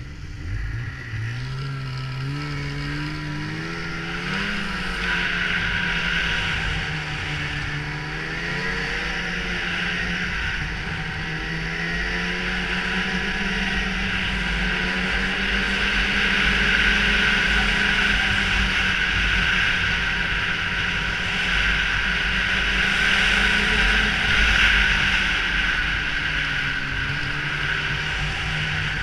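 Snowmobile engine pulling away and climbing in pitch over the first few seconds, then running along at speed with its pitch rising and falling as the throttle changes, over a steady hiss of wind and track noise.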